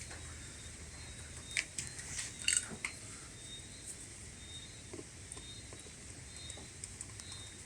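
A few faint clicks and wet squishing sounds of hands working an oil-wet gearbox fitting on an outboard's lower unit, as an oil screw is set in after the refill. The loudest cluster of clicks comes a little after two seconds in.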